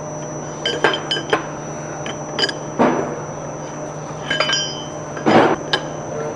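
Small steel pump parts clinking and scraping as a spacer and snap ring are worked onto a screw pump's drive rotor shaft. There are several sharp clinks that ring briefly, and two longer scrapes, one about three seconds in and one near the end.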